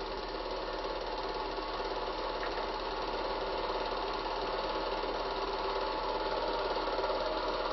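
Cine film projector running steadily, an even mechanical whirring clatter with a constant low mains hum beneath it.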